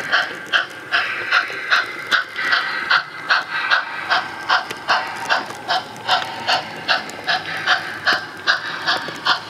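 Model steam locomotive sound unit chuffing steadily, about three chuffs a second, each with a hiss, as the On30 train runs at an even speed.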